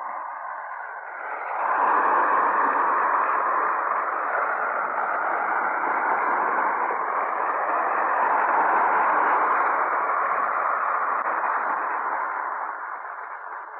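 Shortwave radio static: a steady, narrow-band hiss from the transatlantic relay. It swells about one and a half seconds in and fades near the end.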